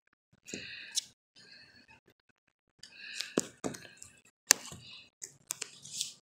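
Faint breathing close to the microphone, with several sharp clicks in the second half.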